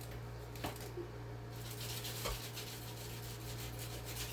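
Table knife sawing and scraping through a slice of pizza on a plate: faint, gritty rubbing strokes with a few light clicks, over a steady low hum.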